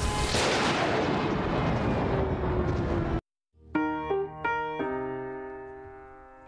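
Stormy wind and rain noise that cuts off abruptly about three seconds in. After a brief silence, an electric piano plays a few notes and then a held chord that slowly fades.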